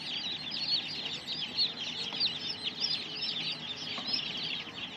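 A crowd of two-day-old chicks peeping nonstop, with many high chirps overlapping into a constant chorus.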